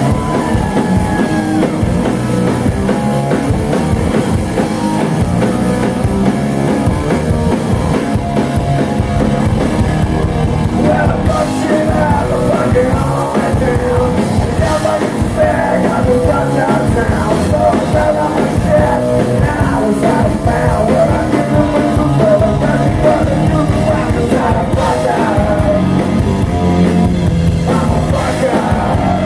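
Punk rock band playing live: electric guitars and a drum kit with cymbals, with a singer at the microphone.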